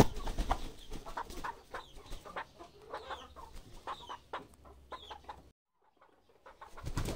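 Hens clucking softly in short, scattered calls, mixed with handling and rustling clicks. There is a sharp knock at the very start, and the sound cuts out for about a second near the end.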